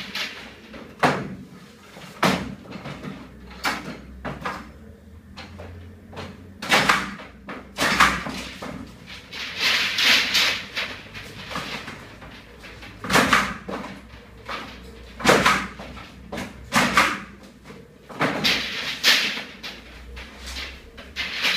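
PEX underfloor-heating pipe being unrolled from its coil and pressed down onto foil-faced insulation: irregular scrapes, rustles and sharp clacks a second or two apart, with a longer scraping rush around the middle.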